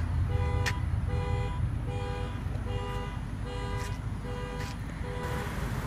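A car horn sounding in a car-alarm rhythm: seven short two-tone honks a little under a second apart, stopping near the end, over a steady low rumble.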